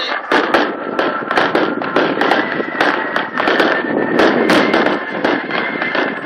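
A fireworks display going off in a rapid, continuous barrage of bangs and crackles, several reports a second with no let-up.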